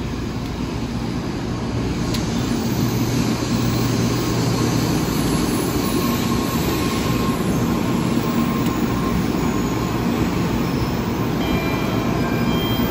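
Train running: a steady rumble and rushing noise that grows a little louder over the first few seconds, with faint steady hums under it.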